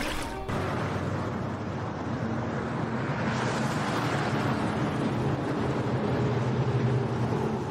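Instrumental intro of the backing track before the vocals: a steady rushing noise over a low held drone.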